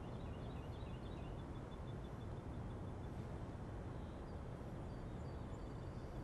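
Quiet outdoor ambience: a low steady rumble with faint bird chirps in the first second or so.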